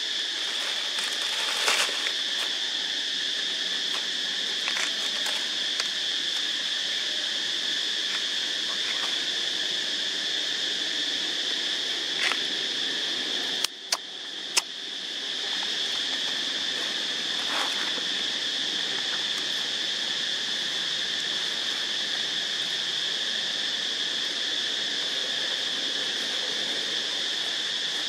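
Steady, high-pitched drone of insects in the forest, unbroken except for a brief dip about halfway through, with two sharp clicks and a few fainter ones.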